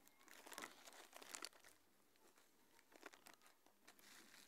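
Plastic packet of brown sugar crinkling as a hand and spoon dig into it for a spoonful. The faint, irregular rustling comes thickest in the first second and a half and returns briefly twice near the end.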